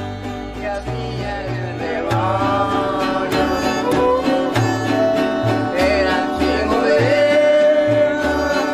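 Small string ensemble playing: a violin carries a gliding melody over strummed acoustic guitars, with low bass notes alternating in a steady rhythm.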